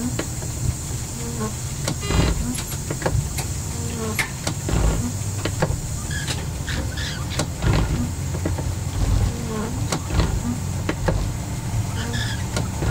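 Y1 railcar with rebuilt Volvo diesel engines running, heard from the driver's cab: a steady low rumble with frequent irregular clicks and knocks as it travels over the track.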